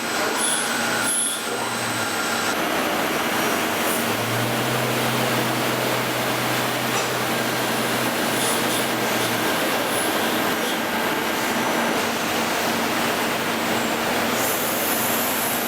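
Goodway GA-2600M CNC lathe running a machining cycle: a steady, dense hiss of cutting noise, joined about four seconds in by a low steady hum that stops about five seconds later.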